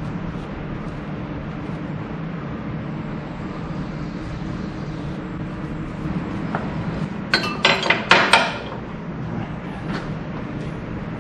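Steady low hum, with a short burst of metal clinks and rattles about seven to eight seconds in as the tractor top link is handled in a bench vise.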